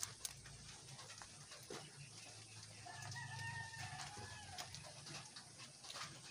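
Rabbit chewing a watermelon slice, a scatter of small crisp crunching clicks. About three seconds in, a rooster crows faintly for under two seconds.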